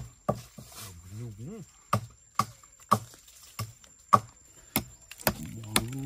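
Small hatchet chopping into a standing tree trunk: sharp wooden strikes about two a second.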